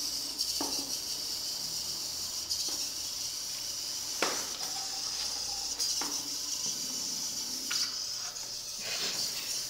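Small robot's electric drive motors whirring as a steady high hiss while it drives through the maze, with a few faint clicks along the way.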